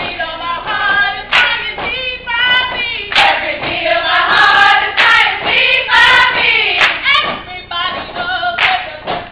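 A group of voices singing together in a chant-like line, with sharp hand claps coming at irregular intervals.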